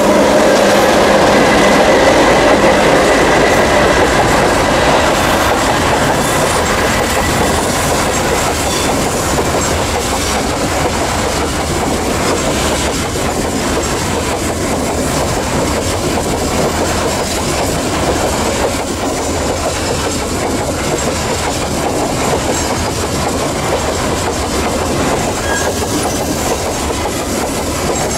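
Empty coal hopper wagons of a long freight train rolling past, with a steady clickety-clack of wheels over the rails. For the first few seconds the hum of the passing CC 202 diesel-electric locomotive is mixed in.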